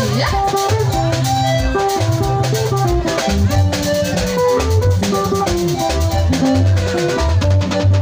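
Instrumental band music: an electric guitar and keyboard melody in short stepped notes over a pulsing bass line and a steady drum beat, with no singing.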